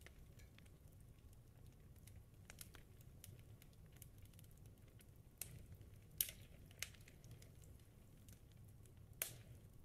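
Near silence: a low room hum with a few faint, scattered clicks.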